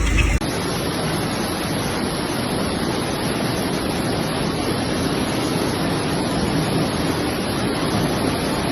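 Steady rushing of storm water, an even hiss, starting abruptly about half a second in.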